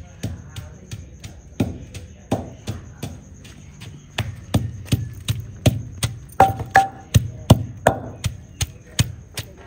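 Long wooden pestle pounding chopped green chillies and coriander in an earthenware mortar (kundi-danda): a steady run of strikes about two to three a second, growing louder and quicker about halfway through.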